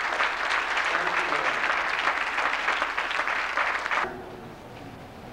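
Congregation applauding, a dense patter of many hands clapping that cuts off suddenly about four seconds in, leaving quieter room sound.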